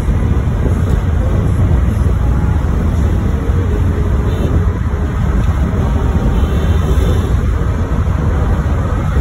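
Steady road and engine noise of a car cruising at highway speed, heard from inside the cabin, with a strong low rumble.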